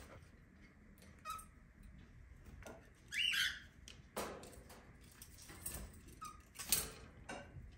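A small pet parrot gives a short chirp a little after three seconds in, with a fainter short call just after one second. Scattered light clicks and rustles run between the calls.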